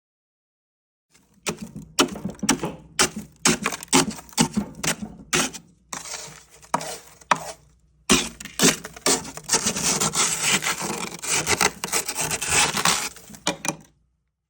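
Flat wooden rice spoon chopping and scraping built-up frost off the inside of a Servel propane fridge: a run of separate sharp knocks and scrapes, then from about halfway a few seconds of rapid, continuous scraping.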